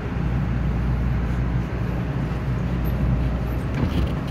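Steady low rumble and hum of an MTR M-Train electric multiple unit, heard from inside the car.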